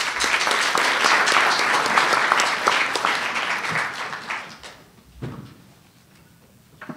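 Audience applauding at the end of a talk, dense clapping that dies away after about four seconds.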